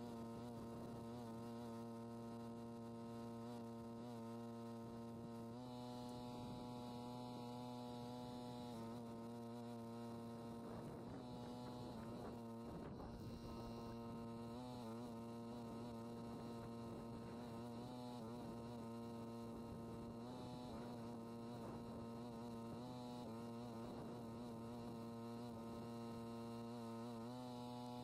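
Faint, steady hum made of several sustained tones held together, whose upper tones shift a few times.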